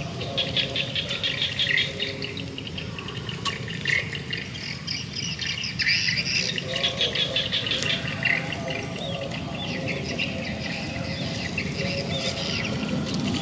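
Small birds chirping and twittering in rapid, continuous calls over a steady low background hum of outdoor ambience.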